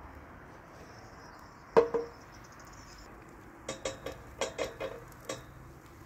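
Wooden spatula knocking against a metal grill pan: one sharp, ringing knock about two seconds in, then a quick run of about seven lighter taps.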